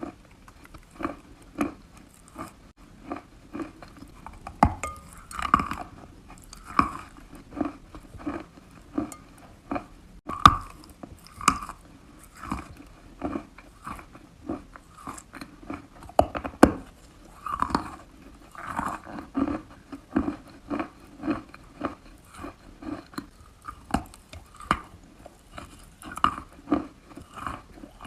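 Close-up chewing of wet chalk: soft, moist crunching in a steady rhythm of about one or two bites a second, with a few sharper, louder crunches now and then.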